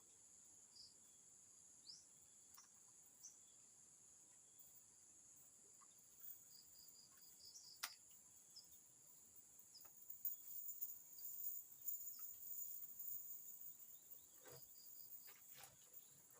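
A steady, high-pitched chorus of crickets and other insects, faint overall, with a few short chirps, a sharp click about eight seconds in and scattered faint knocks in the second half.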